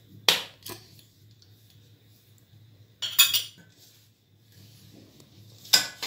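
Hands rubbing flour and oil together in a stainless steel bowl, with three sharp metallic clinks against the bowl: one near the start, one about three seconds in and one near the end.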